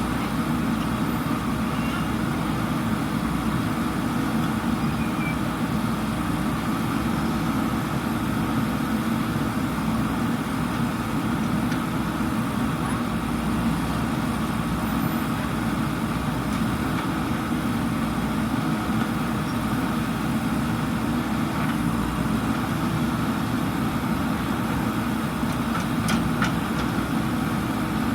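JCB backhoe loader's diesel engine running steadily, with a few faint sharp clicks near the end.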